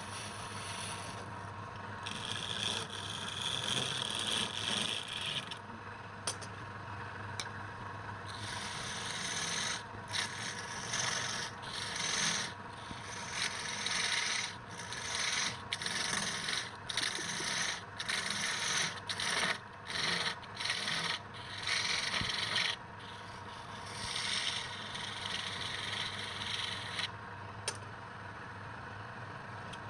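Wood lathe running with a steady motor hum while a tool scrapes against the spinning wood. The scraping comes in long strokes at first, then in quick short passes in the middle.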